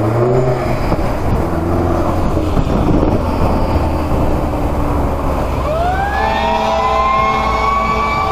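Road traffic passing, with wind on the microphone. About five and a half seconds in, an approaching fire engine's siren winds up: its pitch rises steeply, then climbs slowly as it keeps sounding.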